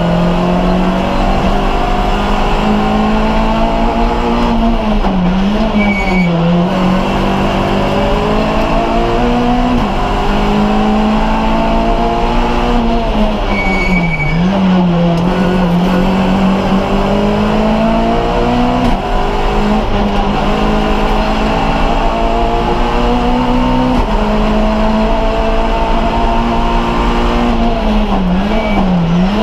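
Rally car engine heard from inside the cabin, driven hard through the gears. Its pitch climbs in stepped runs through upshifts, then drops and wobbles three times as the car slows and changes down.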